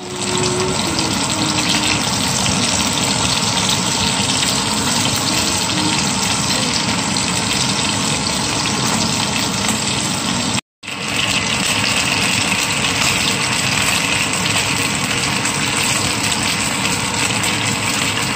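Chicken wings sizzling steadily in hot oil in a pan, cutting out briefly about ten and a half seconds in and then going on.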